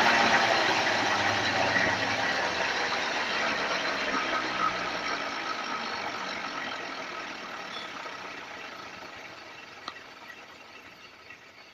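A hand-spun wheel coasting down on its bearing, a whirring noise that fades steadily as the wheel slows. The spin is a test of whether the bearing hums, the sign of wear. One sharp click about ten seconds in.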